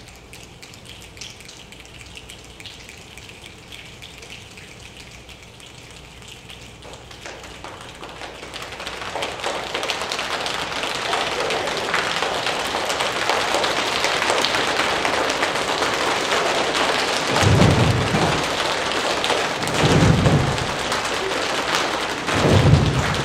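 A rainstorm imitated by a choir: a faint patter that swells after about seven seconds into a dense, even downpour of fine ticks, with three low thunder-like thuds near the end, the last the loudest.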